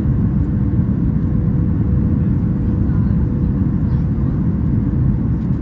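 Steady low rumble of a Boeing 737 MAX 8's cabin noise, engine and airflow, heard from inside the cabin, with a faint steady hum running through it.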